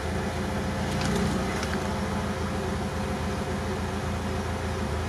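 Lada Niva engine running steadily in low range, under load as the front tyre winds a tow strap around itself as a makeshift winch. The crew judge that the low range is not low enough for the pull.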